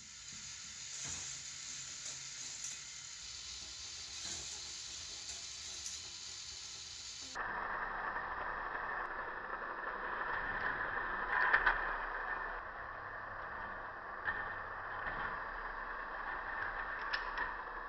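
K'NEX Corkscrew Coaster running: its battery motor drives the plastic lift chain with a steady whirring clatter, and the plastic car rattles along the plastic track with a few small clicks. The sound changes abruptly about seven seconds in.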